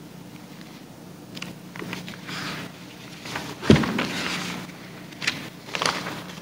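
Rustling and clicking handling noises close to the microphone, with one sharp knock about three and a half seconds in, over a steady low electrical hum.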